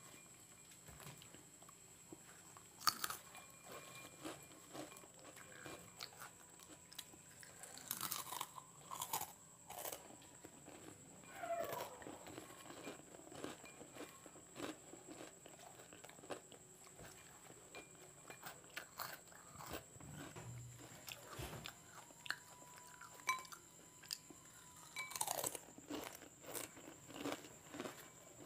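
Close-miked crunching and chewing of Kurkure and Lay's chips, in irregular crunches with a few louder bites, as fingers pick the snacks out of a glass bowl.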